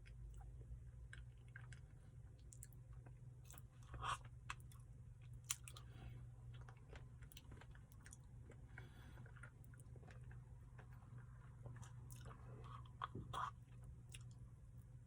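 Faint chewing and mouth sounds of a person eating a Blizzard, soft-serve ice cream with brownie pieces. A few louder clicks come between about four and six seconds in and again near thirteen seconds, over a steady low hum.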